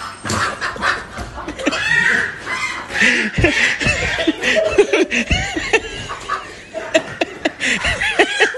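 People snickering and stifling laughter under their breath, with bursts of giggling.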